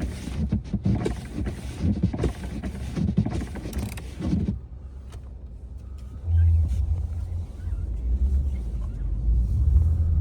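Snow being scraped and cleared from a pickup for about four and a half seconds, with irregular rubbing and scraping. Then only the pickup's engine is heard, a low rumble that rises noticeably about six seconds in.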